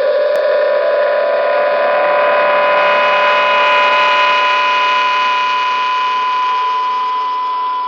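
Star Trek sci-fi sound effect: an electronic machine hum made of several steady tones, with a slight upward glide in pitch at the start and a brighter swell a few seconds in.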